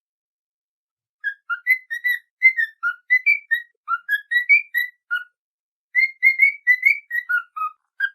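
A whistled tune of quick, short notes hopping up and down in pitch, in two phrases with a pause of about a second between them, starting about a second in: a training whistle of the kind cockatiels learn to copy.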